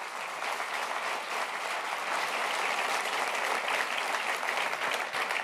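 Audience applauding steadily, a dense sustained clapping from many hands.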